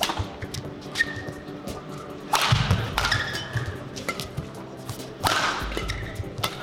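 Badminton rally: rackets striking the shuttlecock about once a second, with two loud hard hits about two and a half and five seconds in that ring on in the large hall. Shoes squeak briefly on the court mat between shots.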